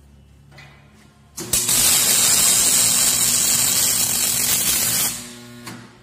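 Electric arc welding: a loud, steady hiss that starts about a second and a half in and cuts off about a second before the end, over a low steady hum.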